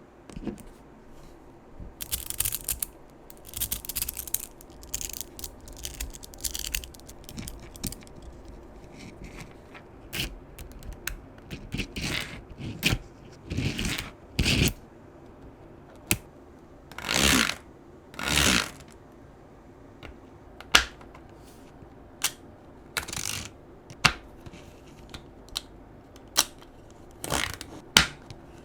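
Small magnetic balls being handled and snapping together in irregular sharp clicks, mixed with short scraping or sliding sounds of about half a second.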